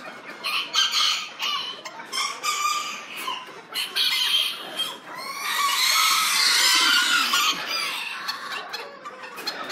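Miniature bantam chickens in cages clucking and squawking in many short calls. Midway a rooster crows in one long call of about two and a half seconds, the loudest sound.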